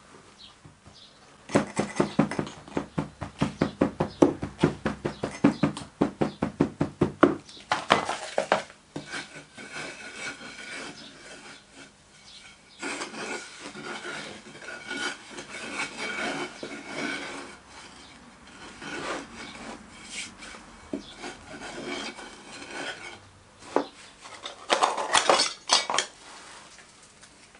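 Moulding sand being rammed into a wooden casting flask with a hand rammer: a fast run of knocks lasting about six seconds. A wooden strike-off bar then scrapes the excess sand off the top of the flask in several passes, and a second short run of knocks comes near the end.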